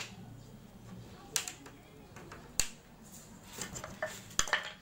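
Sharp knocks and cracks of a wooden packing crate's slats being worked loose with a hand tool: single strikes about a second in and near the middle, then a quick run of cracks and clicks near the end.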